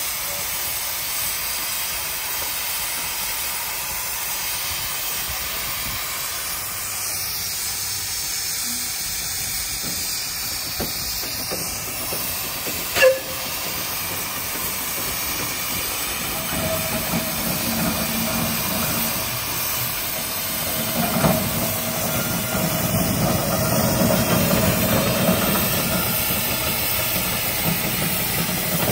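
Steam traction engines on the move: a steady hiss of steam, with a low rumble and a steady mid-pitched tone coming in about halfway and growing louder as the engine draws near. A single sharp knock about halfway through.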